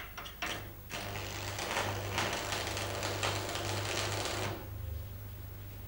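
Manual metal arc (stick) welding electrode on steel: a few sharp clicks as the arc is struck, then the arc crackles and spits steadily for about three and a half seconds while tack welding the end of a corner joint, and cuts off.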